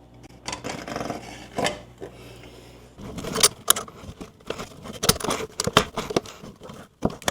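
Metal faucet parts being handled and fitted: a run of sharp clicks, taps and scrapes as the faucet and its mounting hardware are set in place and tightened. The clicks come thicker from about three seconds in.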